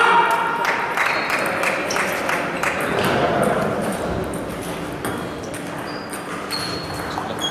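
Table tennis balls clicking off tables and bats, quick irregular clicks from several tables in play at once, thickest in the first few seconds, over background voices.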